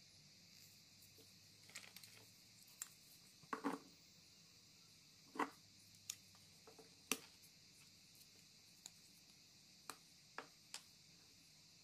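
Handling noise: about a dozen light, irregular taps and clicks as a plastic LED bulb is held, laid on a wooden workbench and turned in the hands, over faint steady hiss.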